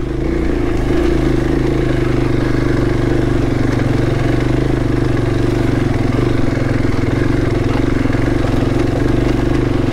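Motorcycle engine running at a steady pitch at low speed, the bike being ridden up a rocky trail.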